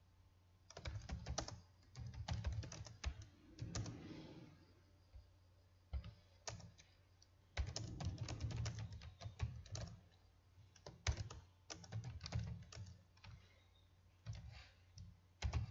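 Typing on a computer keyboard: runs of quick key clicks in several bursts with short pauses between them.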